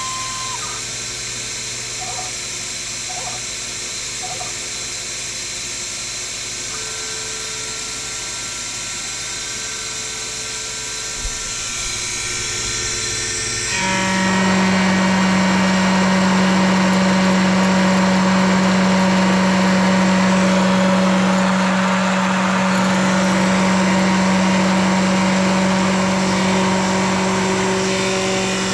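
Sherline mini mill running, its motor giving a steady whine. About halfway through it gets louder, with a strong steady hum and more hiss that hold to the end.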